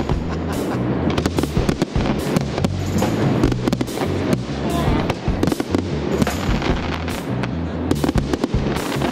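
Aerial firework shells bursting one after another, with many sharp bangs and crackles, over music.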